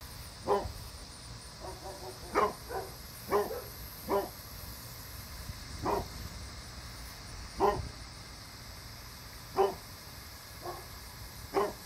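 A dog barking in single barks, about ten of them, one every second or two at uneven intervals.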